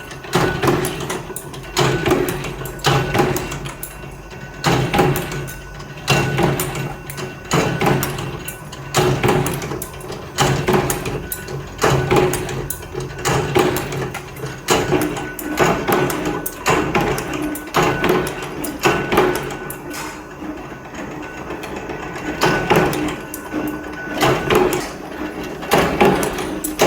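Repeated metal strikes, about one a second, over a steady machine hum, from metalworking on scrap compressor steel.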